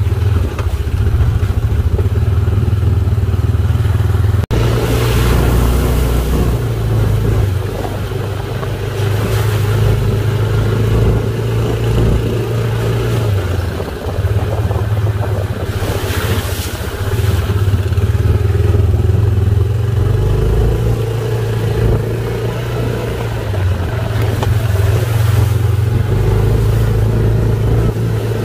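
Off-road vehicle engine running under way, its level rising and falling several times with the throttle.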